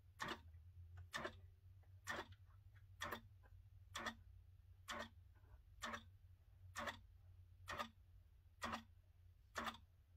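Grace Qnique 15 longarm quilting machine running on its slow baste setting, basting along the edge of the quilt. Each needle stroke makes a sharp click, about one a second and evenly spaced, over a faint low hum.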